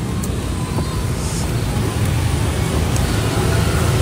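Steady low rumble of street traffic with an even background hiss; a few faint small ticks come through.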